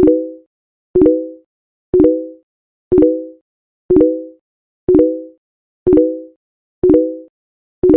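A short sound-effect blip repeated evenly once a second, nine times: each a sharp click followed by a brief low tone that fades within half a second.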